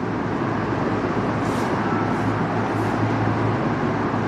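Steady background rumble with a low hum. Three faint scratchy strokes of a marker writing on a whiteboard come in the middle.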